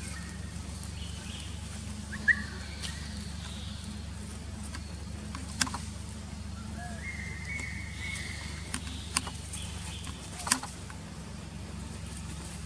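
Outdoor ambience under a steady low hum: about five sharp clicks or snaps scattered through, with a brief rising chirp about two seconds in and a faint high held tone a little past halfway.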